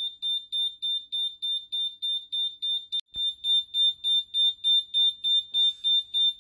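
Fire alarm beeping rapidly, a high electronic beep about three times a second. It signals a fire condition after the flame detector has picked up the test lamp's infrared. The beeping breaks off briefly about three seconds in and comes back louder.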